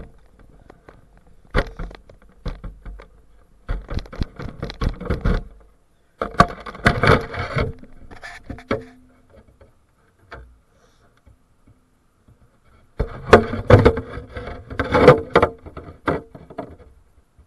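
Handling noise from a small RC boat carrying the camera: bursts of clattering, knocking and rattling as the hull is gripped, lifted and moved about on a dock, with quiet gaps between.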